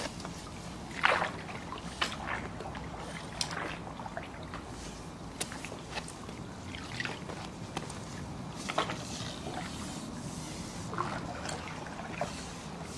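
Pool water sloshing and splashing as a pool brush on a long pole is pushed through it, with a dozen or so short, irregular splashes over a steady wash of moving water.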